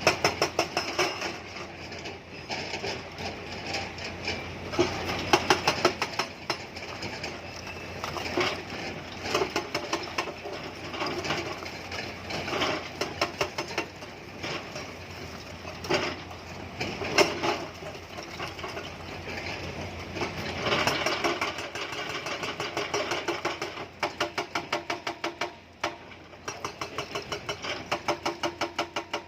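Hydraulic rock breaker on a Tata Hitachi excavator hammering stone in rapid, steady repeated blows, over the excavator's running diesel engine.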